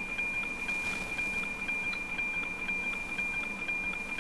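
NOAA weather satellite APT signal heard through an SDR receiver's narrow-FM audio: a steady high whistle-like tone with a regular ticking of line-sync pulses, over background hiss as the signal approaches full quieting.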